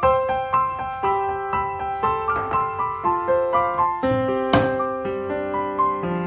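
Background piano music, a slow melody of held notes, with one brief sharp noise about four and a half seconds in.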